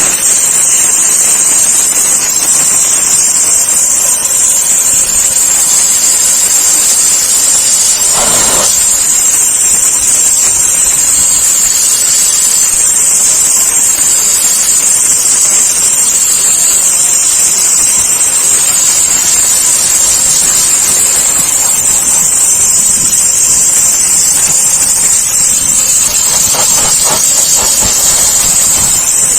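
Global Power GP-S6 electric high-pressure washer with an induction motor, running and spraying water: a loud, steady hiss of the jet.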